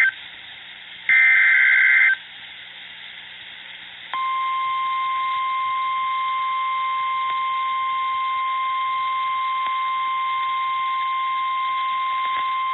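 Emergency Alert System signal over NOAA Weather Radio: a one-second burst of the SAME header's warbling digital data tones about a second in, then after a short gap the steady, single-pitch Weather Radio alert tone starts about four seconds in and holds. The alert tone announces that a new warning is about to be broadcast.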